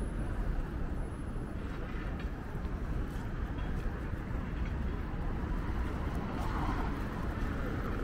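City street ambience: steady traffic noise, with faint voices of passers-by mixed in.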